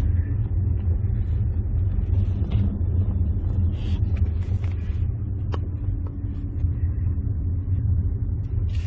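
Steady low rumble of a SsangYong Chairman 3.6 heard from inside the cabin: engine and road noise while the car rolls along, coasting with the driver's foot off the accelerator.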